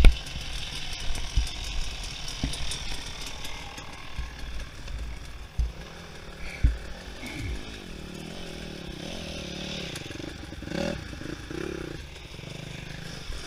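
Enduro dirt bike engines running and revving up and down as riders go through a gully, with a few short low knocks on the microphone in the first seconds.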